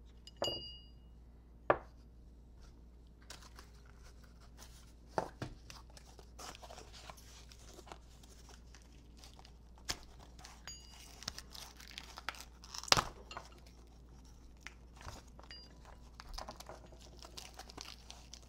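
Handling of packaging and small metal handlebar-riser parts: rustling and crinkling, with scattered clicks and knocks as parts are pulled free. There is a short ringing ping near the start, and sharp clicks about two seconds in and about thirteen seconds in; the one at thirteen seconds is the loudest.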